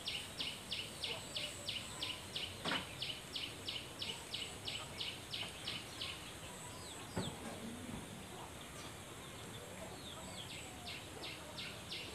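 Rhythmic high-pitched chirping, about three chirps a second, that stops about six seconds in and starts again near the end, over a faint steady high whine. Two faint knocks sound in the pause.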